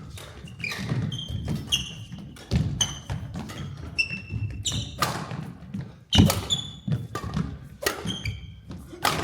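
Badminton singles rally: a string of sharp racket hits on the shuttlecock, with short high squeaks of court shoes on the floor and thuds of footsteps as the players move and lunge.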